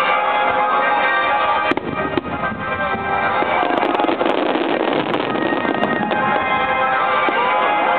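Music accompanying a fireworks show, with shells bursting over it: sharp cracks about two seconds in, a thick spell of glittering crackle, and more scattered bangs through the second half.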